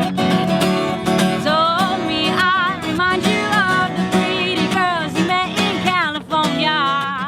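Acoustic guitar strummed in a steady rhythm, with a woman singing over it from about a second and a half in.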